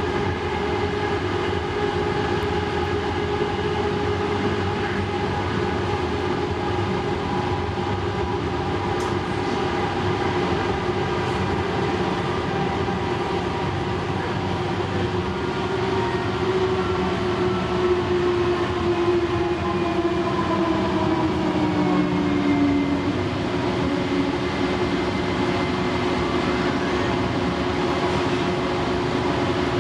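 Light rail train heard from inside the car while it runs along the track: a steady rumble with a whine from the electric drive, parts of the whine falling in pitch a little past the middle.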